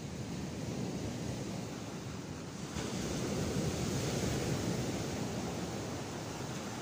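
Sea surf breaking and washing onto the shore, with wind buffeting the microphone; the wash swells louder about three seconds in as a wave breaks.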